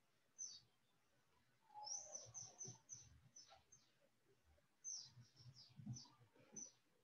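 Faint, quick downward bird chirps in two flurries, about two and five seconds in, with soft low knocks of keyboard typing among them.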